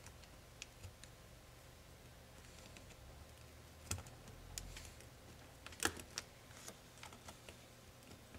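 Small, sparse clicks and taps of hands handling the metal and plastic internal parts of a laptop, with two sharper clicks about four and six seconds in.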